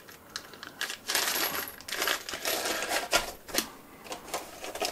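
Small metal hardware (printer rollers, screws and nuts) clinking and rattling inside a plastic bag as it is handled, with rustling of the bag and a run of irregular sharp clicks.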